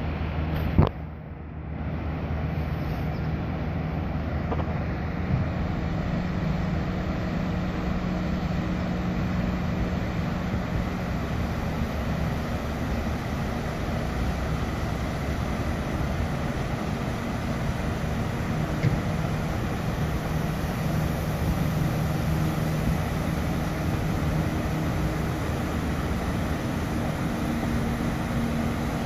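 Sternwheel riverboat under way: a steady low engine drone mixed with the rushing of its paddlewheel churning the water. One sharp click about a second in.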